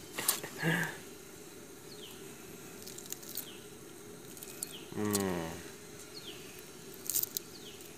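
Steady hiss of an outdoor gas burner heating a pot of bubbling water. A faint high falling chirp repeats about once a second, and a short low voiced sound comes about five seconds in.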